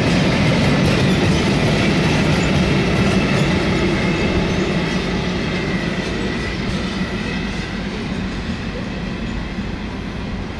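Freight train of Habbins sliding-wall wagons rolling past, steel wheels rumbling on the rails with a thin high squeal in the first half. The sound slowly fades as the train moves away.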